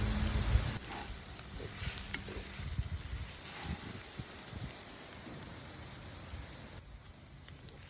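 Trellis vine (veliparuthi) stir-fry sizzling faintly in a pan as it is stirred after the coriander leaves go in, with a few light knocks. A low rumble fills the first second.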